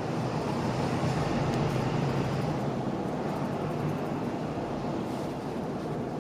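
Steady low rumbling background noise, with faint rustles of nylon jacket fabric being handled.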